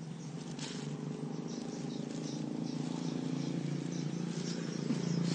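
A vehicle's engine running with a steady hum, growing gradually louder as it draws nearer.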